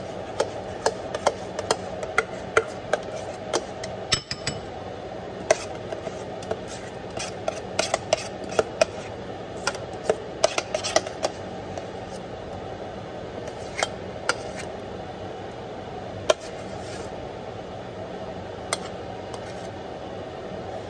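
A spoon scraping and clinking irregularly against the inside of a stainless steel saucepan as thick grits are scooped out into a bowl, over a steady background hum.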